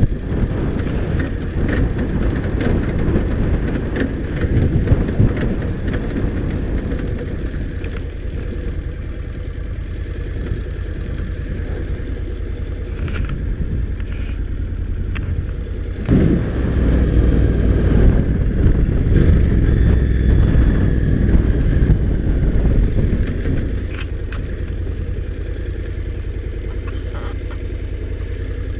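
Honda NC750X motorcycle's parallel-twin engine running while riding over rough dirt track, with scattered clicks and knocks from the ground. It gets louder a little past halfway for several seconds, then drops back.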